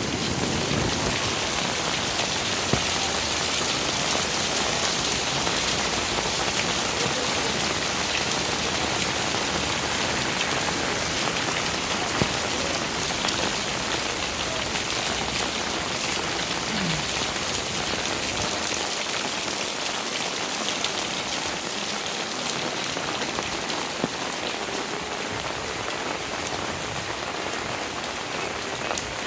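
Steady, heavy rain falling and pattering on surfaces, with a few sharp drip clicks standing out; it eases slightly near the end.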